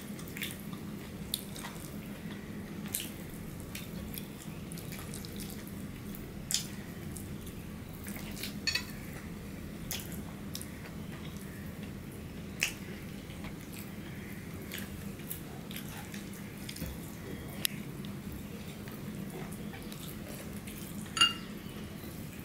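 Eating by hand: scattered small wet clicks and smacks from fingers working rice and curry on ceramic plates and from chewing, over a steady low hum. One brief, brighter ringing click near the end is the loudest sound.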